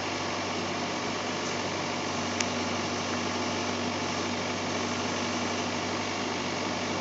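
Link-Belt excavator's diesel engine running steadily, with a single click about two and a half seconds in.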